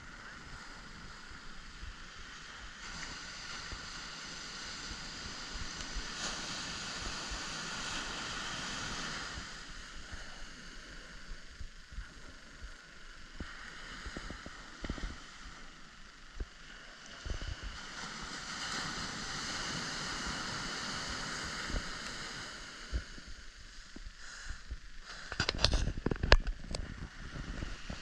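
Small surf breaking and washing up a sandy beach, swelling and fading in long surges. Near the end, a couple of seconds of loud, low rumbling knocks cover the surf.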